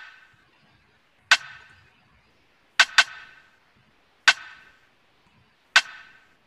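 A rim-shot drum sample played back from a sampler, struck again and again about every second and a half with a quick double hit near the middle: each one a sharp crack with a short ringing tail.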